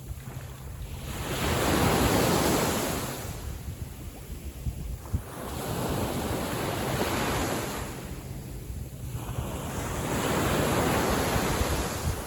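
Small sea waves breaking and washing in, three swells of surf about four seconds apart, with a low wind rumble on the microphone.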